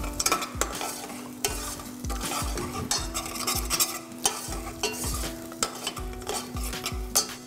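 Metal spoon stirring a thick condensed-milk and coconut mixture in a stainless steel saucepan, scraping and clinking against the pan in uneven strokes, with a sizzle from the simmering pan underneath.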